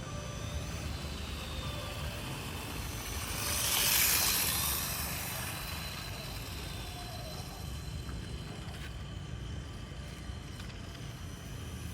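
1/4-scale radio-controlled motorcycle running, its sound swelling as it comes close about four seconds in and then fading, over a steady low rumble.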